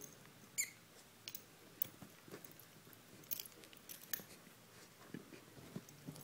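A rat's light scratching and clicking, with one short high squeak about half a second in.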